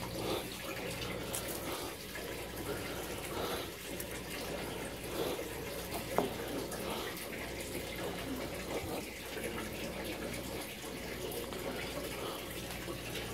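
Steady running-water noise with soft rustling and scraping as a hand digs through potting soil and carrot foliage in a plastic pot, and a small click about six seconds in.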